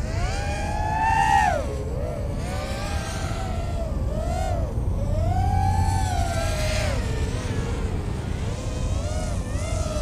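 LitisRC Cicada 180 4-inch racing quadcopter's motors and propellers whining in flight. The pitch rises and falls with the throttle, climbing to a peak about a second and a half in before dropping sharply, then swelling and dipping again several times.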